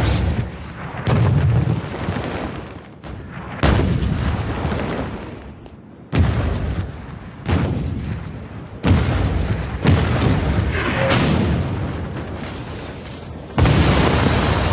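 Artillery barrage: a field gun firing and shells exploding, about eight heavy booms one to two and a half seconds apart, each trailing off in a low rumble.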